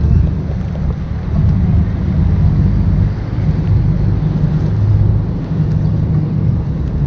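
Wind buffeting a handheld camera's microphone: a loud, uneven low rumble that eases a little near the end.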